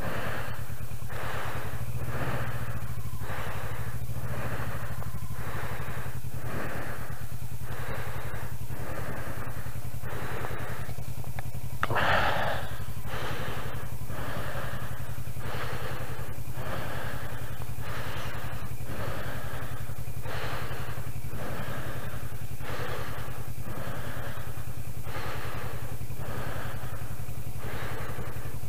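Kawasaki Versys 650's parallel-twin engine running steadily at low speed, with an even rhythmic swishing over it about three times every two seconds and a brief louder noise about twelve seconds in.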